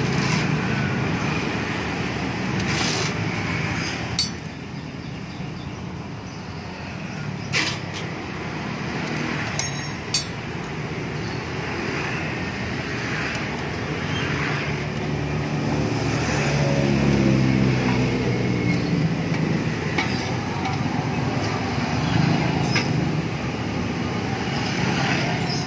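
An engine running steadily, its pitch rising and falling for a few seconds past the middle, with a few sharp metallic clinks.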